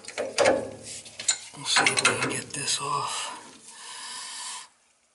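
Pipe wrench clicking and scraping on a seized steel fitting on a heating-oil tank's oil line, with irregular metal-on-metal clicks and grating. The sound stops abruptly near the end.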